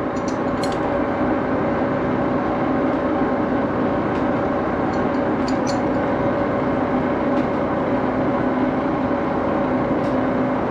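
Metal lathe running steadily: an even machine hum with several steady tones, and a few faint high ticks.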